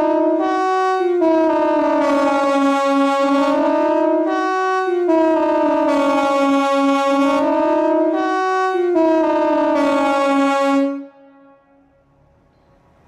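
A siren sounding several notes at once, repeating a cycle about every four seconds: a long tone that sags and comes back up, then a brief step to a higher note. It cuts off suddenly about eleven seconds in.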